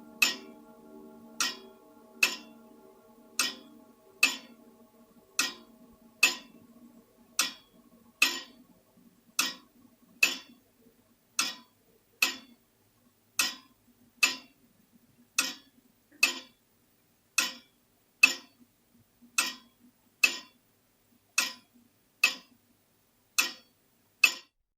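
Grandfather clock ticking, about one tick a second in an uneven tick-tock rhythm. A lingering ringing fades out over the first ten seconds or so.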